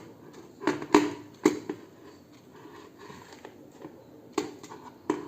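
A few irregular knocks and clunks, the loudest about a second in, as the quartz wall clock is handled and carried back to the wall.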